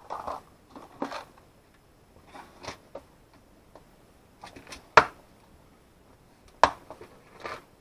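A clear plastic parts-organizer box being handled and opened: irregular plastic clicks and clatter with small parts rattling, and two sharp clacks, one about five seconds in and one about a second and a half later.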